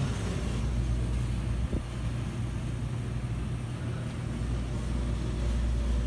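Air conditioner blower fan running steadily on its newly replaced motor, a low even hum with airy rush: the unit running normally again after the motor change. One brief click about two seconds in.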